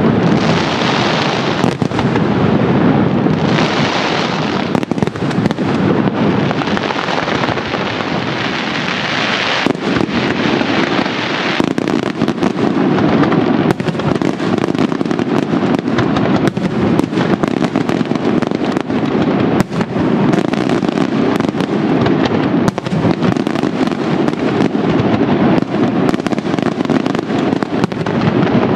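Fireworks display: a dense, unbroken barrage of shell bursts and bangs, loud throughout. A hissing crackle is strongest for about the first twelve seconds, after which the sound turns to a deeper rumble of reports.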